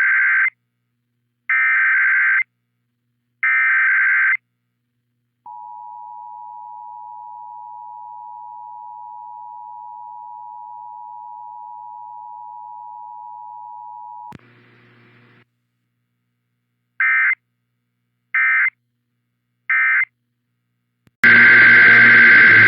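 Emergency Alert System test signal: three shrill digital header bursts, then the two-tone attention signal held steady for about nine seconds. After a brief faint patch come three short end-of-message bursts, and near the end a louder, static-laden transmission begins.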